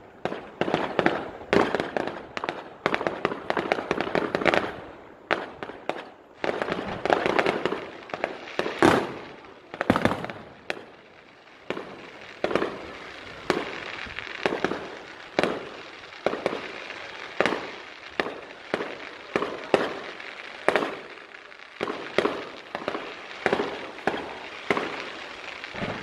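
Fireworks display: a dense barrage of aerial shell bangs and crackle for about the first ten seconds, then separate bangs at roughly one a second, each dying away quickly.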